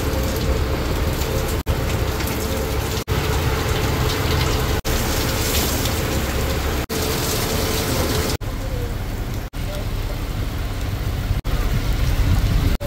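Heavy rain pouring down on an open fishing boat's deck and the sea around it, a dense steady hiss with a low drone underneath. The sound is broken by several very brief gaps.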